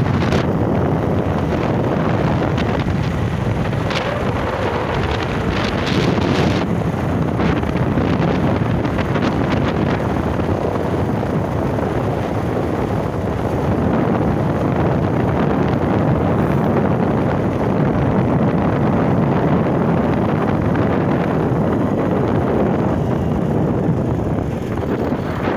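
Wind buffeting the microphone of a moving Bajaj Pulsar 150 motorcycle, with its air-cooled single-cylinder engine running underneath at a steady cruise. There are a few sharper gusts in the first several seconds.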